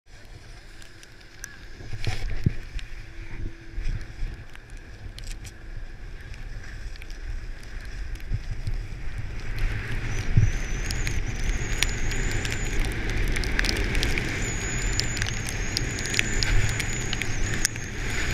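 Snowboard scraping over packed snow, with wind rushing on the camera's microphone during a fast run downhill. It grows louder over the first half as speed builds, with small knocks from bumps throughout and a thin high whistle in the second half.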